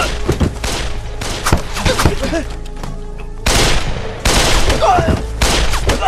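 Gunfire from several rifles in a battle: many overlapping shots, growing into denser, louder volleys about three and a half seconds in. A dramatic music score plays underneath, and a shout comes near the end.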